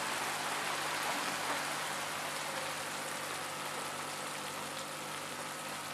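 Thick mushroom masala gravy sizzling and bubbling in a pan, a steady crackle that eases off slightly as it cooks on residual heat with the gas just turned off.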